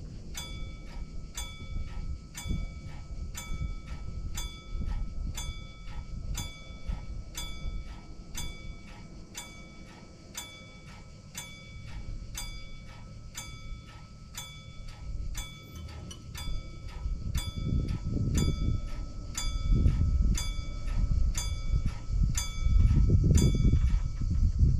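Level-crossing warning bell ringing in even, metallic strokes, about three every two seconds, as the crossing barriers come down for an approaching train; it stops near the end. Low rumbling gusts of wind noise on the microphone grow heavier in the last few seconds.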